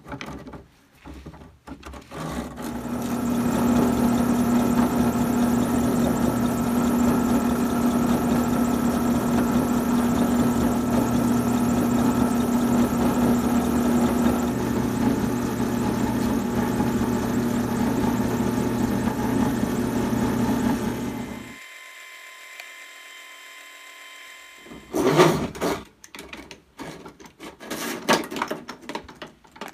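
Drill press motor running steadily as a small bit bores pilot holes into a wooden cabinet door; the hum cuts off abruptly about two-thirds of the way through. Near the end come irregular clicks and knocks as the chuck is handled by hand.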